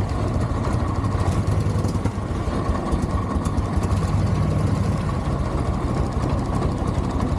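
Harley-Davidson early Evolution 80 cubic inch V-twin running steadily at idle in neutral.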